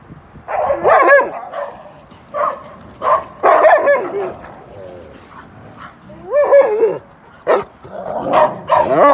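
Dogs barking and yipping as they play-wrestle: a string of about seven loud calls, each bending up and down in pitch, with short pauses between.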